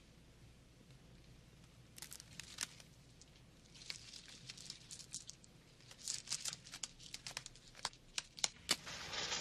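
A cigarette and matches being handled: small crinkles and clicks, getting busier about six seconds in, then a match struck and flaring with a short hiss near the end.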